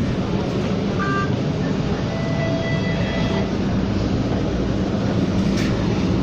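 Cabin sound of a Bombardier Flexity streetcar running: a steady rumble with a constant low hum. Short electronic beep tones sound about a second in and again between two and three and a half seconds.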